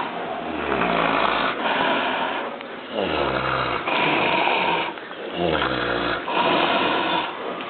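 A sow snoring in a steady rhythm of about one breath every two and a half seconds. Low snores that fall in pitch alternate with noisier rushes of air.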